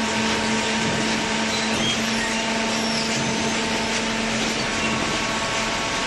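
Hydraulic cardboard baler running: a steady mechanical hum with an even hiss over it, unchanging throughout.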